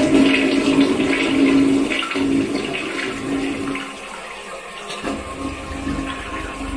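Rushing water with a steady low hum underneath, loudest in the first couple of seconds and then easing off.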